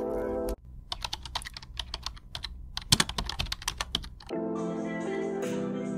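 Background music stops abruptly, followed by about four seconds of quick, irregular clicks and taps in close succession. The music comes back near the end.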